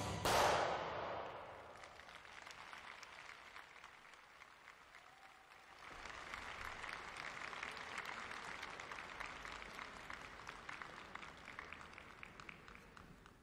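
The program music ends on a final chord that dies away over a second or so, then applause and clapping from a small arena crowd, swelling about six seconds in and slowly fading toward the end.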